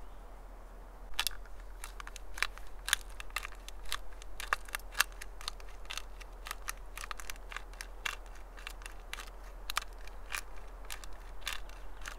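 Hand-twisted spice grinder crunching and clicking as it grinds seasoning. The clicks are quick and irregular, starting about a second in and going on almost to the end.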